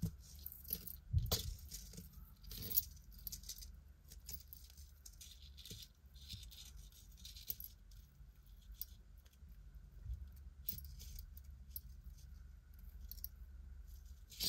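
Costume jewelry clinking and jingling as pieces are picked up and handled. There are a few sharper clicks in the first three seconds, then fainter scattered jingles.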